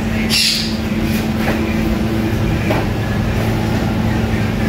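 A steady low machine hum, with a short hiss about half a second in.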